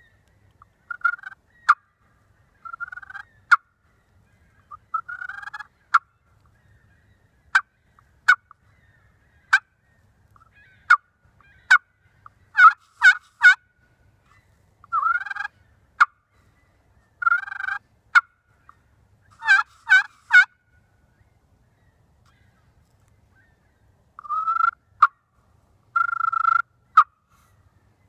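Slate-over-slate pot turkey call, played with an osage orange striker, imitating a hen turkey. It gives short, sharp notes and rougher drawn-out notes in bursts with pauses between, and a quick run of notes near the end.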